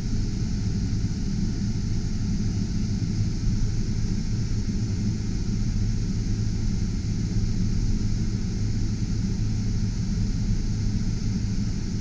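A Chevrolet Silverado 2500's engine idling steadily while the air-conditioning blower runs, with a steady rush of air from the dash vents.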